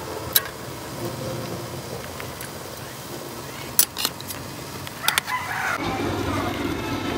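A few sharp metallic clicks of steel tongs against an aluminium steamer pot. A rooster crows in the background about five seconds in.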